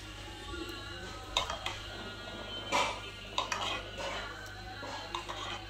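A serving spoon knocking and scraping against a pan of custard several times as custard is spooned out and poured, with a steady low hum underneath.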